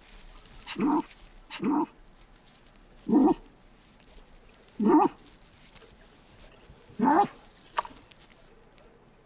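Tasmanian devil giving short, low, whining calls, five in a row, one every one to two seconds. These are the reassuring calls a mother devil uses to coax her joeys out of hiding in the den.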